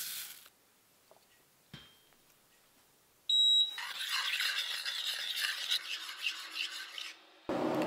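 Dry oats poured into a stainless steel saucepan at the start, then a short high beep from the glass-top hob's touch controls about three seconds in. After it, a spoon stirs and scrapes the oats in the pan for several seconds, and a short lower rushing noise comes in near the end.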